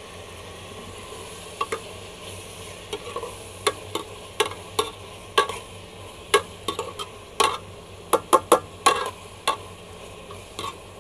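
A metal spoon stirring and scraping in a metal pot, knocking against its sides again and again, over the steady sizzle of sliced onions, tomatoes and green chillies frying in oil. The knocks start about a second and a half in and come more often in the second half.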